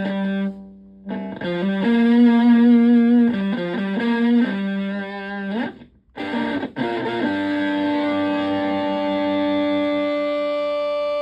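Fuzzed electric guitar, a Stratocaster through a Zonk Machine replica fuzz pedal and a Sinmarc amp, playing a phrase of single notes with two short breaks. From about seven seconds in it holds one long sustained note.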